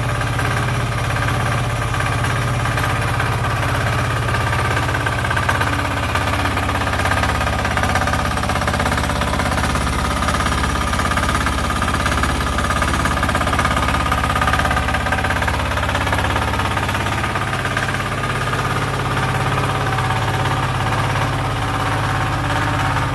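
Single-cylinder air-cooled WEIMA WM178FE diesel engine of a Motor Sich MB-6DE walk-behind tractor running steadily while the tractor is driven and its gears are checked. The low drone changes about three-quarters of the way through.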